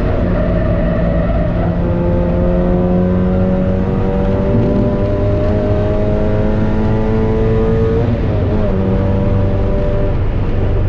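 Mazda MX-5 NB 1.8's four-cylinder engine accelerating hard, heard from inside the cabin: the revs climb steadily for several seconds, drop at a gear change about eight seconds in, then climb again.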